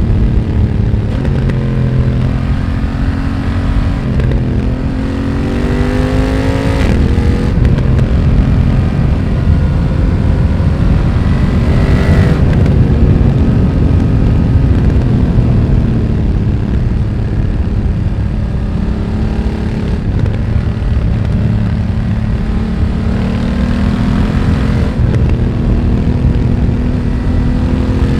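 BMW F900R's parallel-twin engine through a Mivv X1-M slip-on exhaust, ridden on the road. The revs climb in steps with short breaks between them, ease off and fall away through the middle, then build again near the end.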